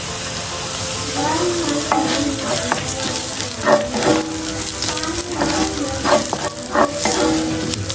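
Food sizzling in a hot pan while being stirred, with short scrapes and knocks of a spatula against the pan.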